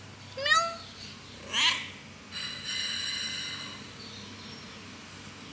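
Young cat meowing: two short meows about half a second and a second and a half in, followed by a longer, steadier, quieter sound.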